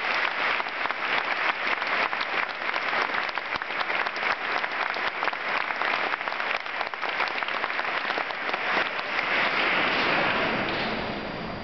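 Large audience applauding: many hands clapping densely and steadily, easing off a little near the end.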